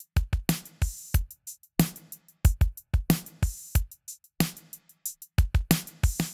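Dry drum-kit loop playing back through an EQ plugin: a steady beat of short kick, snare and cymbal hits, with brief silent gaps between them.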